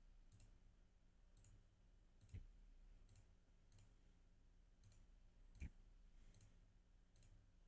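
Faint computer mouse clicks, about ten at uneven intervals and two of them a little louder, as letters are selected one at a time in CAD software. A faint steady hum runs underneath.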